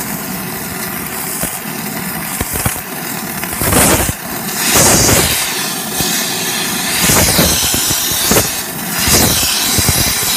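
Gas torch flame blasting steadily into a crucible of molten silver, swelling louder several times.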